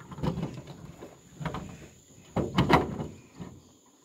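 A few hollow knocks and bumps of a homemade outboard motor being set onto the transom of an aluminium boat, the loudest a little past halfway.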